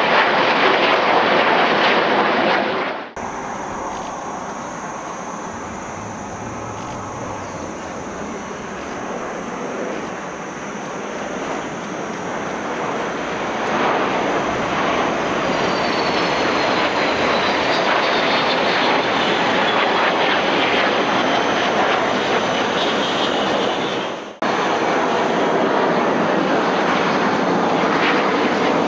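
Aermacchi MB-339 jet trainers flying past in formation: the steady noise of their Rolls-Royce Viper turbojets, with a high whine that slowly falls in pitch as they go by. The sound changes abruptly twice, about three seconds in and near the end.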